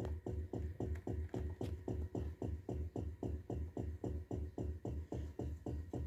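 Refrigerator making a fast, even pulsing noise, about six beats a second over a steady low hum, that keeps going without stopping; the owner takes it as a sign that the fridge is about to fail.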